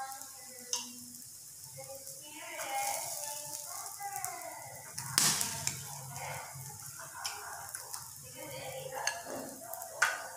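Chicken sizzling on an electric tabletop grill, with metal tongs clicking against the wire rack as the pieces are picked up; a sharp clack about halfway through is the loudest sound.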